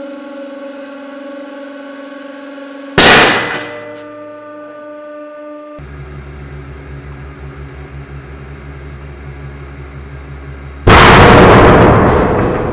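Hydraulic press pump humming steadily while it loads a 22 mm steel drill bit point-first against steel. About three seconds in comes a sharp metallic clang with ringing, and later the hum drops lower and heavier. Near the end the bit shatters with a very loud bang, a "thump" that rings as it fades.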